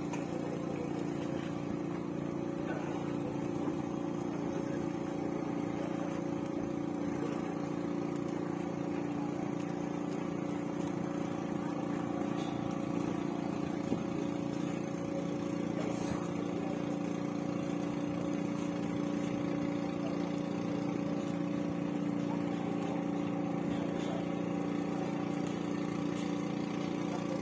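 Boat engine running steadily at an even pitch, a constant drone without revving.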